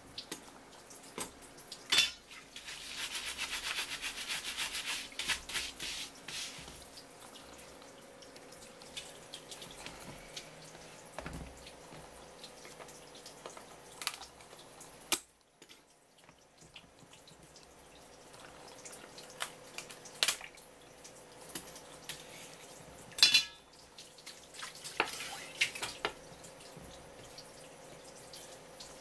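Tap water running and splashing onto a swimming crab and a wooden cutting board for a few seconds early on. Then scattered sharp knocks and clicks as the crab's shell and a kitchen knife are handled on the board, the loudest near the end.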